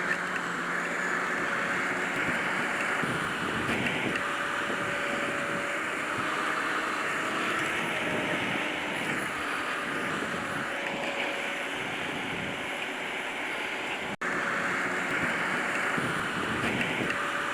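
Grimme Varitron 270 potato harvester working: a steady mechanical running noise of engine and machinery, with a faint steady whine, cutting out for an instant about fourteen seconds in.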